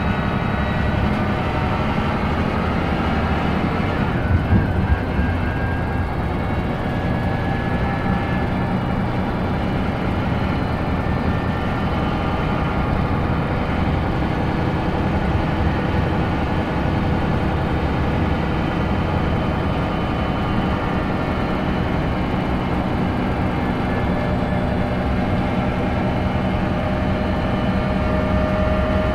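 Scania L94UB bus's 9-litre diesel engine and ZF 5HP592 Ecomat automatic gearbox running steadily, heard inside the passenger cabin with the gearbox cover slightly open. A few short knocks come about four to five seconds in.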